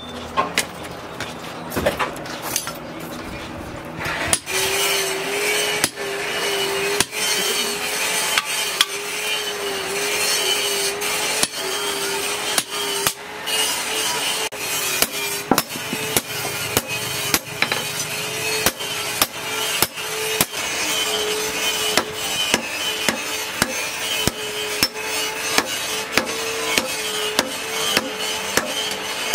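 Hand hammer striking a red-hot steel blade, forged from a chainsaw bar, on a steel post anvil: sharp, repeated blows a little over one a second. A steady hum joins underneath about four seconds in.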